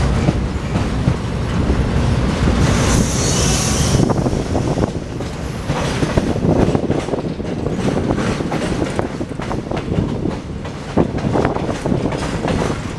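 Train running at speed, heard from an open coach door: a steady rumble with wheels clattering over rail joints, close alongside a line of goods wagons. A brief high hiss comes about three seconds in.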